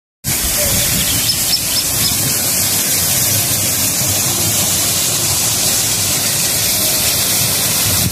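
Steady, loud rushing hiss that starts abruptly about a quarter second in, after a moment of silence.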